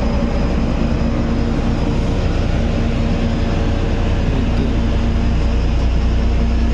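Steady, loud drone of an oil drilling rig's engines and machinery running: a deep hum with a steady low tone riding on it.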